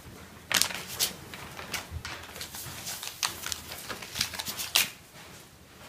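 Irregular light clicks and rustles of small objects being handled, with a few sharper taps.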